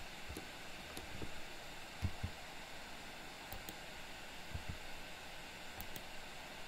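Steady microphone hiss, with a few faint clicks and soft knocks scattered through it from a computer keyboard and mouse in use.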